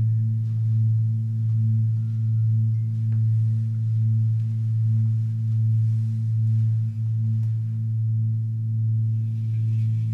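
A deep singing bowl ringing on one low steady tone with a fainter higher overtone, its loudness swelling and fading a little more than once a second as the tones beat against each other.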